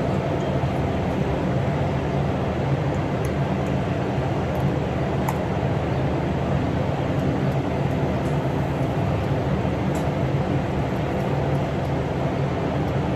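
Farm tractor engine running steadily at constant speed, a low, even drone.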